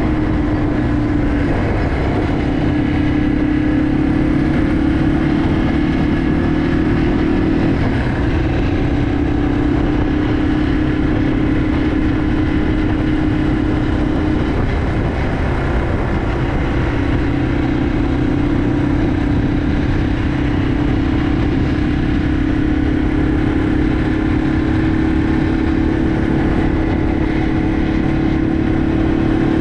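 Yamaha TW200's single-cylinder four-stroke engine running at a steady cruise while riding, under a dense rushing noise. The engine note dips slightly about eight seconds in, fades briefly around the middle, then holds steady again.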